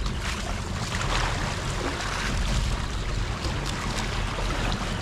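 Wind buffeting the microphone over the steady wash of sea water against a small fishing boat's hull.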